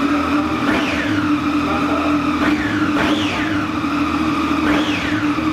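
Triumph Daytona 675's three-cylinder engine idling in neutral and blipped four times, each rev rising quickly and dropping back more slowly to idle.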